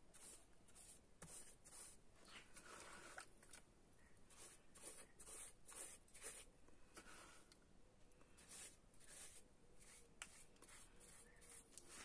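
Faint, irregular scratchy strokes of a paintbrush dabbing and scrubbing wet cement slurry onto cement-soaked fabric, several strokes a second.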